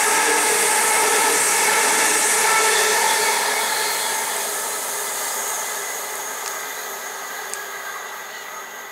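c2c electric multiple-unit passenger trains running past at speed: a steady whine of several tones over the rush of wheels on rail. It fades steadily from about three seconds in as the train draws away, with a couple of faint ticks near the end.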